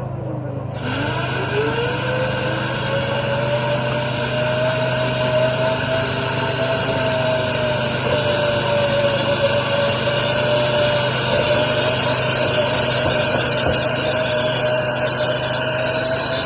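Motor-driven vent-cleaning equipment running with a steady whine and a loud rush of air. Its pitch dips about a second in, then climbs back up and holds steady.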